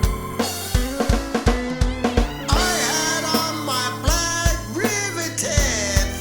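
Music: a song with a steady beat on kick and snare drums over a bass line, with a lead vocal melody in the second half.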